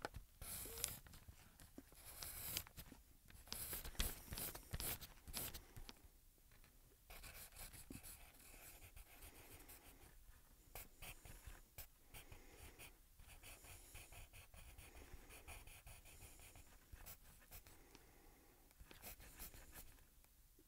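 Pen scratching on paper in quick, irregular strokes as words are written and crossed out. It is faint, with the firmest strokes in the first few seconds.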